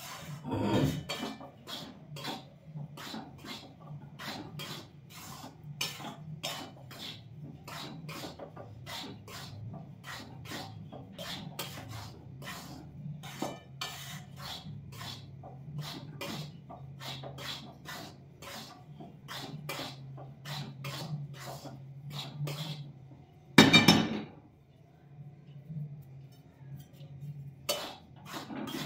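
Steel spoon scraping and knocking against a steel karahi as flour and ghee are stirred and roasted over a low gas flame, a quick run of scrapes and clinks about two or three a second over a low steady hum. One much louder knock comes near the end.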